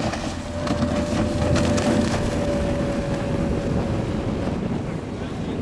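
Outboard-powered cuddy boat running at speed past the microphone. Its engine is a steady whine that drifts slightly lower and fades after about four and a half seconds, over wind buffeting the microphone and the rush of water.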